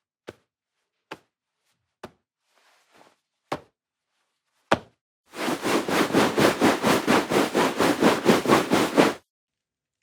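Clothing handled as a sound effect: five short, separate sounds spaced a second or so apart, then from about five seconds in a fast, even run of fabric strokes, about four or five a second, that stops suddenly a little before the end.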